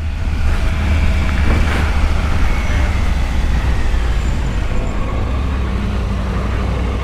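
Triumph Tiger 900's three-cylinder engine running steadily at low revs in second gear while the bike slows down, with road and wind noise.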